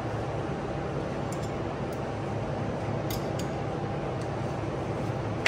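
A few light metallic clicks from handling a brake-line flaring tool as the freshly flared copper line is freed, over a steady low hum. A sharper click comes at the very end.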